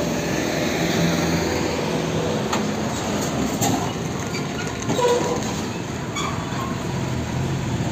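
Heavy container truck pulling a shipping-container trailer on a road: a steady diesel engine rumble with tyre and road noise and a few knocks.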